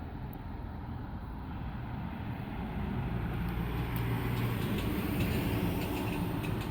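Low, steady outdoor rumble, like distant road traffic, that grows louder about three seconds in and stays up.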